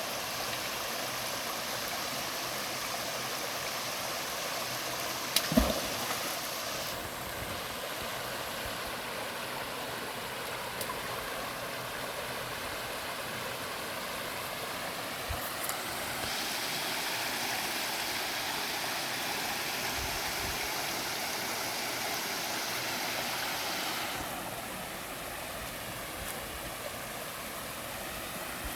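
River water rushing steadily. A sharp knock about five seconds in, with a couple of fainter knocks later.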